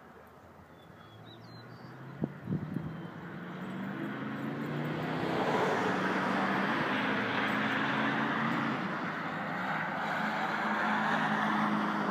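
A motor vehicle's engine growing louder over several seconds and then holding steady, as it passes on the road. A few short knocks come about two seconds in.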